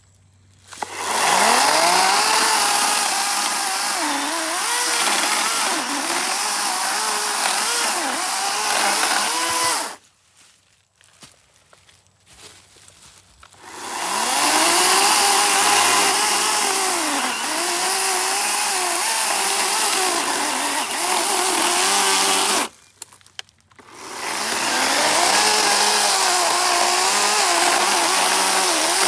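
Greenworks G-Max 16-inch battery-powered electric chainsaw cutting wood in three runs of several seconds each, with short quiet gaps between. The motor's pitch sags and recovers repeatedly as the chain bites into the wood.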